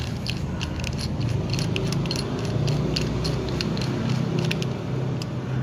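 Metal silencer being screwed onto the threaded barrel of a chrome WE Beretta M9A1 green-gas airsoft pistol: small irregular metallic clicks and scrapes, several a second, over a low steady rumble.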